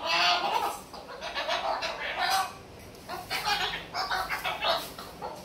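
Moluccan cockatoo chattering in a series of short speech-like bursts, with a brief pause about two and a half seconds in.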